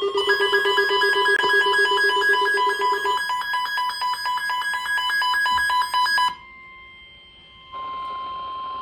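Emergency alert broadcast tones: a loud, rapidly pulsing ringing alert made of several high tones at once, cutting off about six seconds in. After a short lull comes a quieter steady tone of about 1 kHz near the end.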